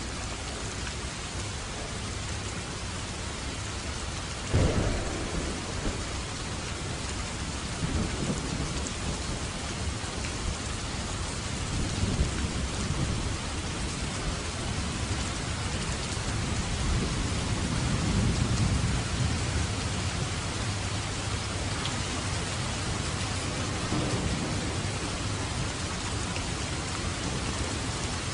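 Steady heavy rain with thunder: a sudden close clap a few seconds in, then low rolling rumbles that swell and fade several times.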